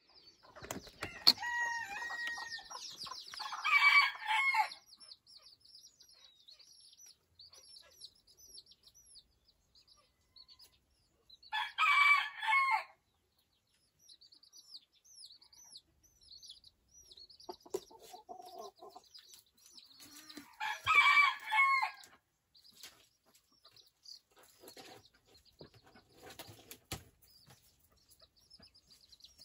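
A bantam rooster crowing three times, about eight seconds apart, over steady high peeping from bantam chicks. There is a sharp click about a second in from the shed door's knob.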